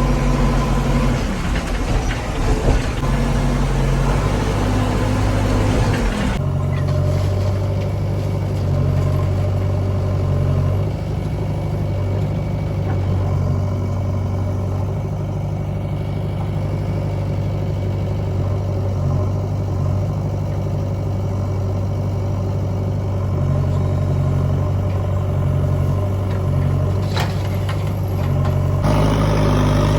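Heavy diesel engine of earth-moving machinery running steadily at low speed. The engine sound changes abruptly twice, as the shot switches between machines, and there is one short sharp knock near the end.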